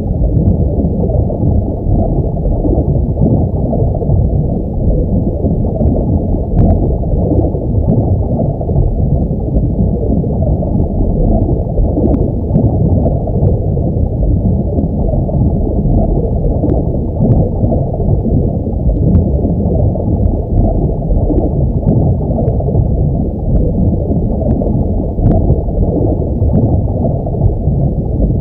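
Underwater ambience sound effect: a steady, muffled rush and rumble of water, with faint clicks now and then.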